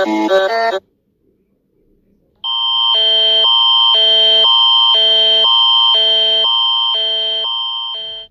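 Electronic alarm signals: a fast-pulsing alarm pattern cuts off under a second in, and after a short silence a second alarm starts, a steady high tone over lower tones that pulse about twice a second, fading a little before it stops near the end.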